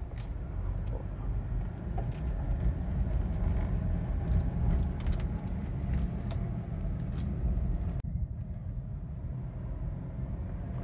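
Car driving slowly on a wet street, heard from inside the cabin: a steady low rumble of engine and tyres with scattered light ticks. The higher hiss drops away suddenly about eight seconds in.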